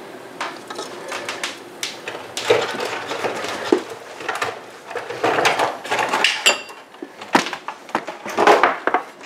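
Irregular clicks, knocks and light clatter of kitchen utensils and dishes being handled, with a sharp clink about six and a half seconds in.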